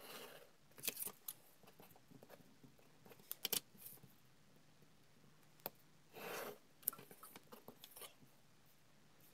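Faint pen strokes scratching along a plastic ruler on paper, one short stroke right at the start and another about six seconds in, with light clicks and taps of the ruler being lifted and set down in between.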